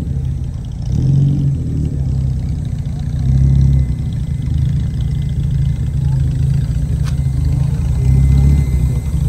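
Classic car engine idling low and steady, revved lightly three times: about a second in, around the middle, and near the end.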